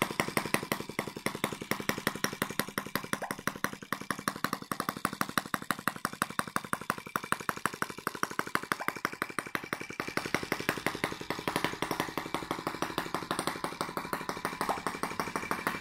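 Microcosm T26 model tractor's tiny 1.9cc four-stroke gasoline engine running steadily, with a rapid, even putter of exhaust pulses.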